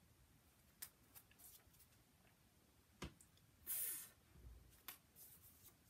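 Near-silent room with a few faint clicks from handling a paper cut-out letter. A little past the middle comes one short soft "fff" hiss, the phonics sound of the letter F.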